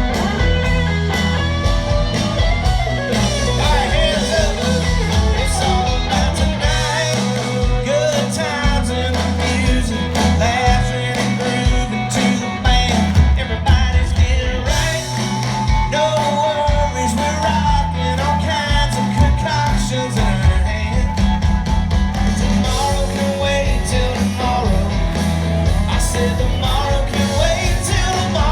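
Live country-rock band with lead vocals, electric guitar, bass and drums, loud and steady, recorded from the crowd.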